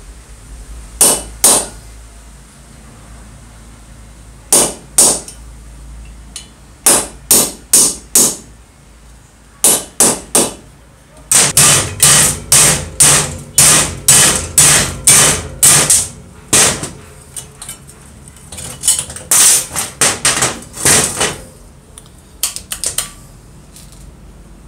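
Hammer blows on metal. They come first in pairs and short runs, then as a steady series of about two blows a second for some five seconds, then in more short groups. Each blow is sharp with a brief metallic ring, as parts of an old, rusty circular saw are knocked loose during disassembly.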